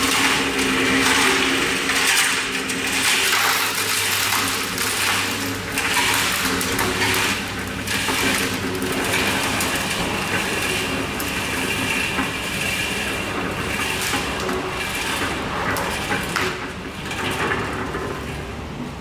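Small electric drum concrete mixer running with its drum tipped, stiff fresh concrete tumbling and rattling out of the drum into a metal tray over a steady motor hum. The mix is a near-zero-slump, low-water batch.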